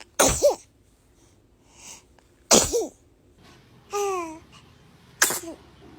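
A baby sneezing three times, evenly spaced. Each sneeze is a sharp burst of breath ending in a short high squeak of voice that falls in pitch. A short high falling vocal sound comes between the second and third sneeze.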